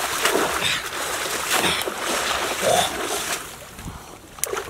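Muddy ditch water splashing and sloshing as a woven bamboo basket is dunked and lifted out, water pouring back out of it. The splashing dies down about three and a half seconds in.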